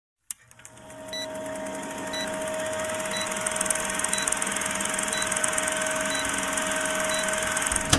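Film-countdown sound effect: the steady whirring rattle of a film projector, fading in over the first second, with a short high beep about once a second. It cuts off suddenly at the end.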